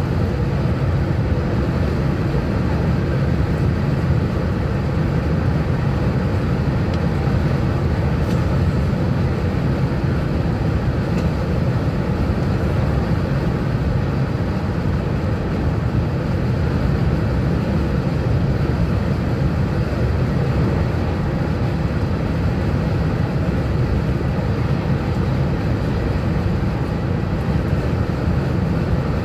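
Steady rumble and rush of a OUIGO TGV high-speed train running at speed, heard inside the passenger car: wheel and track roar with air noise, unbroken and even throughout.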